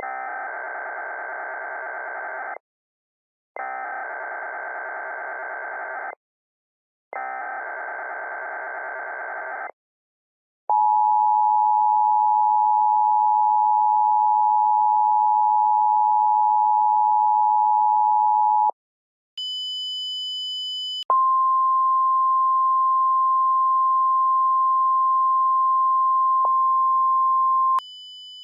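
Emergency Alert System alert sequence: three short screeching SAME data bursts, each about two and a half seconds, about a second apart. Then a steady two-tone attention signal for about eight seconds. After a brief high beep comes a single steady alert tone for about six seconds, ending in a faint high tone.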